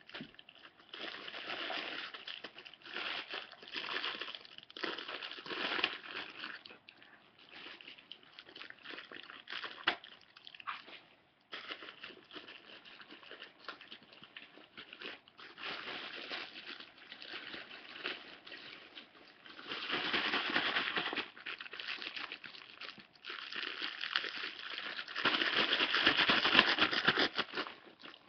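Plastic bag crinkling in irregular bouts as it is handled and rolled up, loudest near the end.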